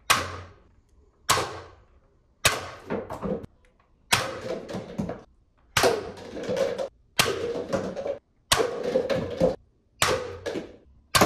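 Toy foam-dart blaster pistol firing about eight shots, one every second and a half or so, each sharp pop followed by a short rattle of paper cup targets being hit and tumbling down.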